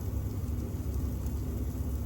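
Kitchen range hood fan running with a steady low rumble, with pork sizzling faintly on an electric shichirin grill.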